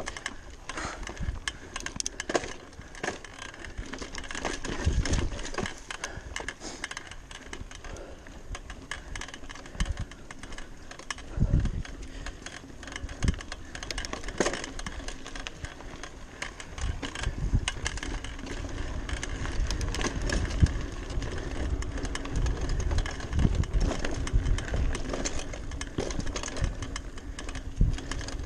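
Giant Talon 3 29er hardtail mountain bike ridden along a dirt and leaf trail: tyres rolling over the ground, with constant small rattles and clicks from the chain and bike and repeated low thumps as it goes over bumps.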